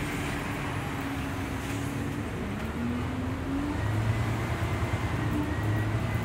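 Scania N94UB single-deck bus's engine running as the bus pulls slowly forward, a steady low rumble whose pitch rises about two seconds in and grows heavier about four seconds in. A faint high whine joins about four seconds in.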